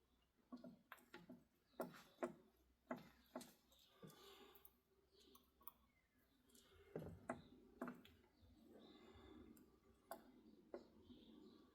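Light, irregular metallic clicks and knocks from a lathe's headstock gear train and selector as it is turned over by hand in a low gear, with a brief rumble of turning gears partway through.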